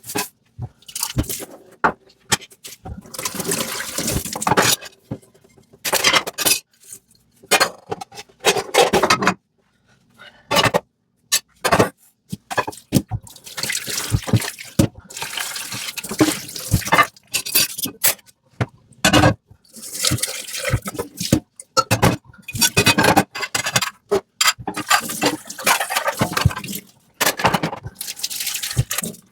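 Dishes being washed by hand in a sink: stretches of running and splashing water, broken by many short knocks and clinks, with brief silent gaps between.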